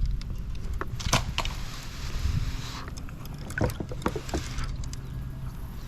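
Knocks and clunks of gear and movement against a 9-foot kayak's hull, a few sharp ones scattered through, with a soft rushing hiss for about a second in the middle and a low steady rumble underneath.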